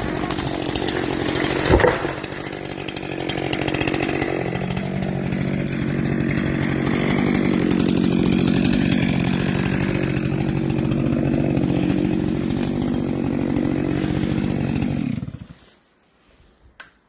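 Two-stroke chainsaw running steadily through a tree-felling cut, with a sharp heavy thump about two seconds in as the felled tree comes down. The engine cuts off suddenly near the end.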